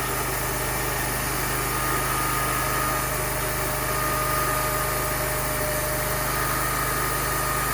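Portable sawmill's engine running steadily at an even pitch, with a constant low hum.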